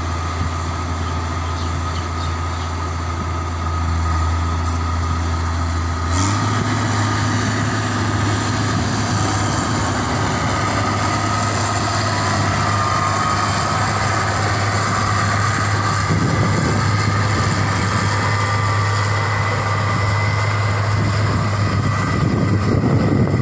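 New Holland 8070 combine harvester's diesel engine running steadily with a low drone; about six seconds in the engine note steps up slightly in pitch and gets a little louder.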